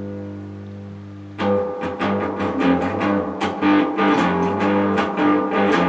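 Guitar playing: a held chord rings and fades over the first second and a half, then strumming starts abruptly and goes on in a quick, even rhythm of about three to four strokes a second.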